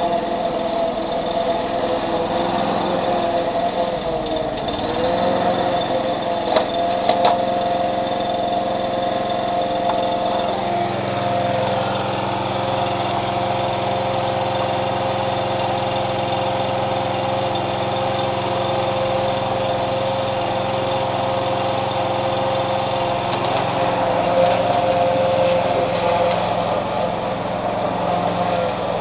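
Petrol walk-behind rotary lawn mower running steadily while mowing grass, its engine note shifting slightly now and then under load. A couple of sharp ticks come about seven seconds in.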